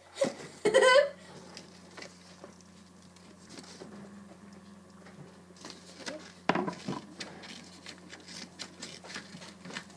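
A short rising voice sound in the first second, then faint scattered clicks and rustles of handling over a steady low hum, with one louder knock-like burst about six and a half seconds in.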